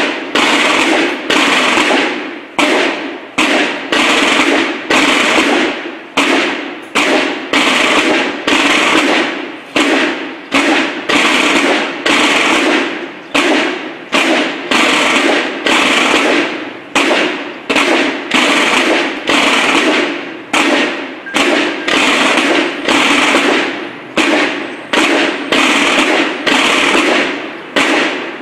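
Snare drums of a Mexican military drum and bugle corps (banda de guerra) beating a steady march, dense rapid strokes with a regular repeating accent.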